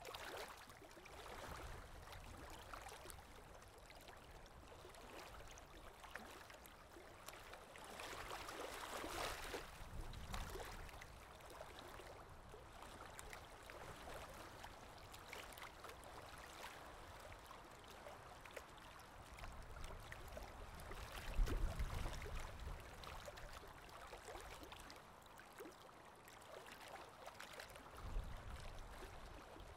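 Faint outdoor background noise, a steady hiss, with brief low rumbles about two-thirds of the way through and again near the end.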